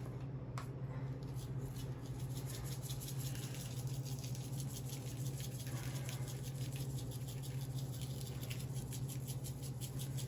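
Shaker of dry seasoning blend being shaken: a quick, even run of light rattles as the granules shake out, over a steady low hum.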